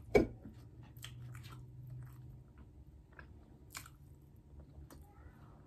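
A person biting and chewing food close to the microphone: one loud bite just after the start, then scattered wet chewing clicks.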